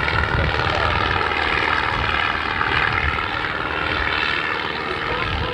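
Light single-engine propeller airplane's engine running with a steady drone.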